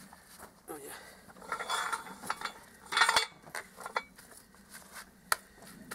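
A log scraping and knocking against a metal sawhorse as it is lifted into the holder: two short scrapes with metal clinks, the loudest about three seconds in, then a single sharp click near the end.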